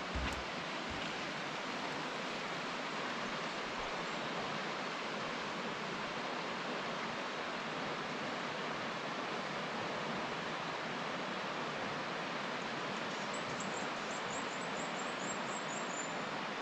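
River water rushing steadily through a rocky gorge. Near the end, a quick run of about a dozen short, high notes rises above it.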